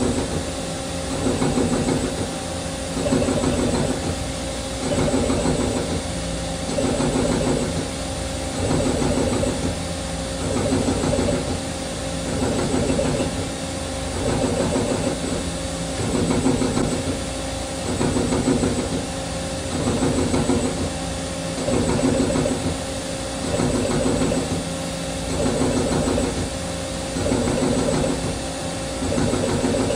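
A 2-axis CNC lathe running a Fanuc G75 grooving cycle, the grooving tool plunging into the spinning workpiece again and again. The cutting noise swells and eases about every two seconds over a steady machine hum.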